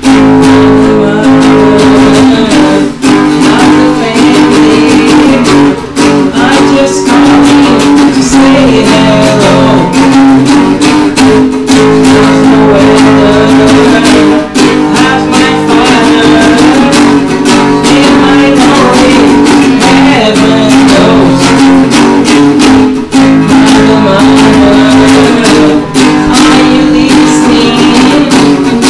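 Small band playing instrumental music loudly: a strummed acoustic guitar over electric bass, with steady drum hits keeping the beat.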